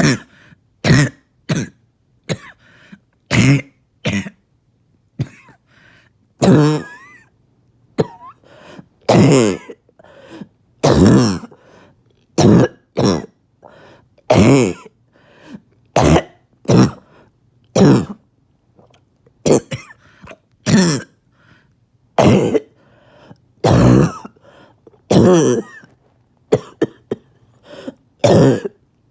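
A person coughing over and over with a harsh barking cough, one cough every second or two, some of them hoarse and pitched, with throat clearing between.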